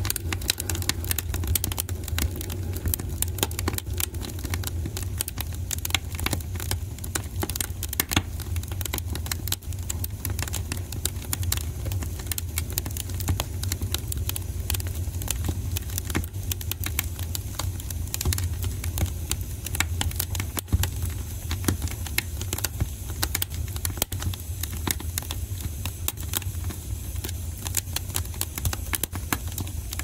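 Wood fire burning in a fireplace: a steady low rumble with frequent, irregular crackles and pops.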